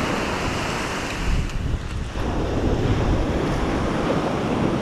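Ocean surf washing up a sand beach, with wind buffeting the microphone. The wash eases for a moment about a second and a half in, then builds again.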